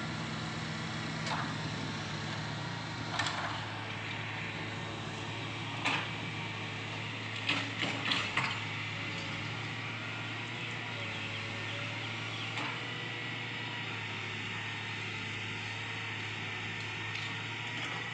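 Dump truck's diesel engine running steadily while its hydraulic hoist tips the loaded bed, the engine note changing about three seconds in. Several sharp knocks sound over it, with a quick cluster about eight seconds in.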